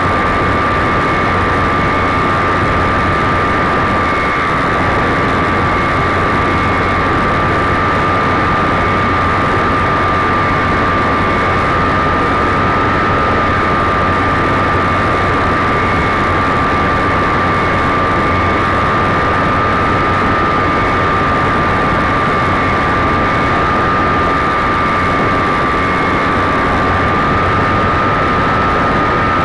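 Radio-controlled model airplane's motor and propeller running at steady throttle, heard from a camera riding on the plane: one steady high whine over constant airflow rush on the microphone.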